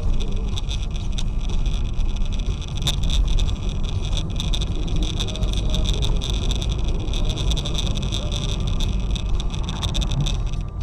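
Steady road and engine noise of a moving vehicle as picked up inside the cabin by a dashcam, a deep rumble under a constant hiss, with scattered faint clicks.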